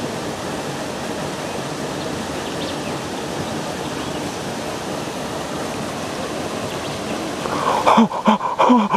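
Steady rush of river water flowing over the rocks below a spillway. Near the end it is broken by splashing as a hooked fish thrashes at the surface, and a man's voice breaks in.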